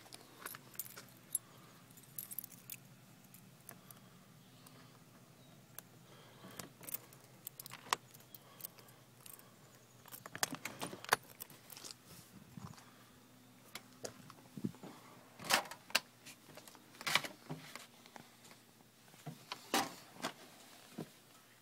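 A ring of keys jangling and clicking as it is handled and worked into an RV door's deadbolt and lock: scattered short metallic jingles and clicks, louder and busier in the second half.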